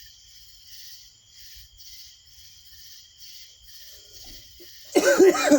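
Crickets chirping in a faint, steady chorus that pulses about twice a second. Near the end, a person's voice breaks in with a short, loud sound.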